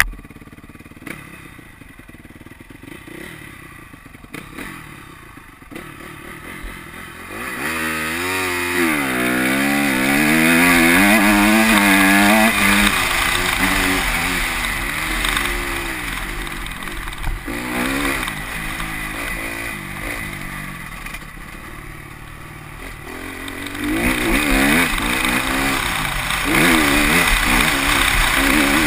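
Honda CRF250R's single-cylinder four-stroke engine revving up and down as the bike is ridden. It is quieter for the first several seconds, loud from about eight seconds in, eases off midway, and climbs again near the end.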